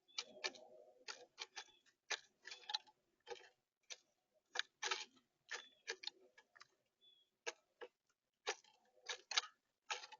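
A bird pecking at black oil sunflower seed in the plastic feeder tray: irregular sharp taps and clicks of its beak on the seed and the tray, some in quick pairs, with a faint short chirp about seven seconds in.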